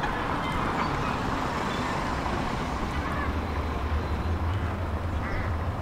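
Tram in motion, heard on board: a steady rolling and running noise, with a low hum that grows louder about halfway through.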